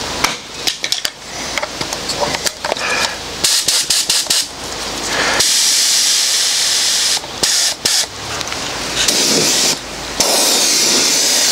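Compressed-air gravity-feed spray gun spraying paint, a loud even hiss in long bursts from about halfway through, broken by a few short pauses where the trigger is released. Before that, short hisses and handling clicks.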